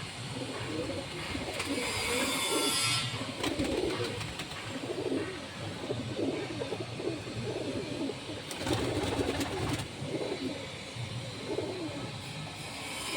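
Domestic pigeons cooing, one low, rolling coo after another without a break.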